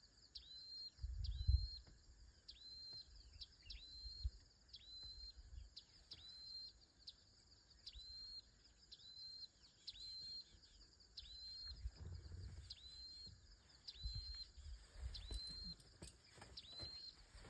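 A bird calling the same short note over and over, about once a second, each note rising and then held briefly. Occasional low rumbles run underneath.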